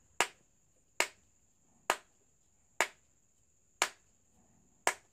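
Sharp plastic taps of a screwdriver handle knocking around the seam of a KWW 9 W LED bulb, six knocks about a second apart. The tapping loosens the glued diffuser from the heatsink housing so the bulb can be opened without breaking it.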